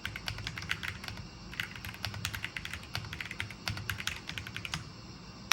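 MonsGeek M1W mechanical keyboard being typed on: quick runs of keystroke clicks in bursts. The typing stops shortly before the end, then one louder click.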